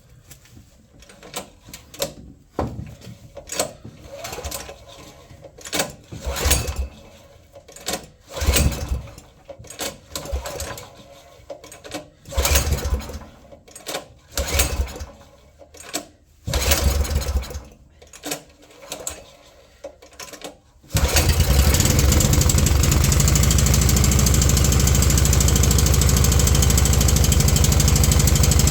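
Small petrol engine of a water blaster being pull-started with the choke on and a freshly fitted carburettor: a string of separate pulls of the recoil starter as it turns over, then about 21 seconds in it catches and runs steadily and loudly.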